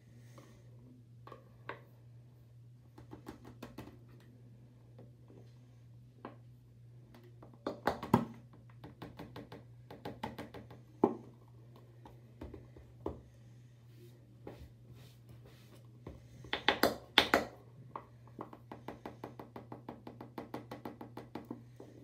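Scattered knocks and taps from a plastic party cup and a thin stick being handled on a desk, loudest in a cluster about two thirds of the way through, then a quick run of light ticks near the end. A steady low hum lies underneath.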